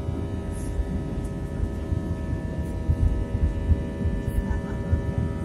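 Airbus A320 cabin noise in flight: a steady low rumble from the engines and airflow, with a constant hum of several steady tones over it.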